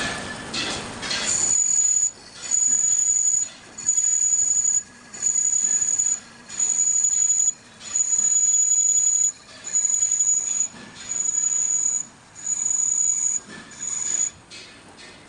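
A running machine pulley squealing: a high, steady squeal that comes and goes about ten times, each lasting about a second with short breaks between, starting about a second in.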